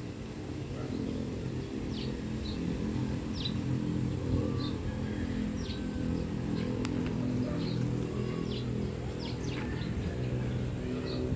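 Bulldozer's diesel engine running at a steady low drone, with birds chirping repeatedly over it in short high calls.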